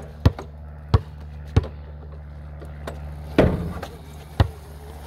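A basketball bouncing on hard ground: three evenly spaced bounces, then a louder clattering hit with a brief rattle about three and a half seconds in, and one more bounce about a second later.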